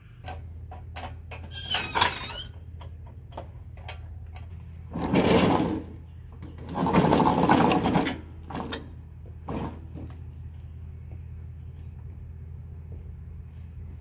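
Two short runs of a small motorised hand tool, about five and seven seconds in, over a steady low hum, with scattered clicks and taps of tools on metal.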